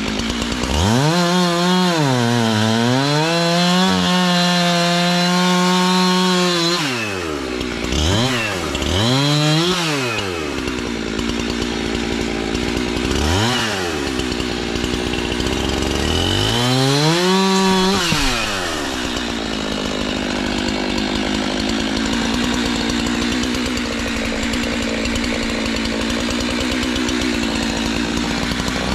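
Two-stroke Jonsered chainsaw cutting through a dead tree trunk. The engine revs up and drops back several times in the first half, then runs steadily at high speed for the last ten seconds or so.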